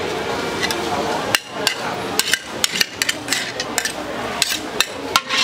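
Metal spatula striking and scraping a wok as noodles are stir-fried: a steady hiss for the first second or so, then about a dozen sharp, irregular metallic clanks.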